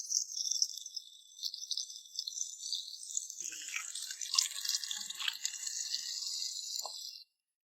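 Sausages frying in hot oil in a pan over a campfire: a steady sizzle with fine crackling, joined after about three seconds by lower crackles and a few light clicks. The sound cuts off suddenly near the end.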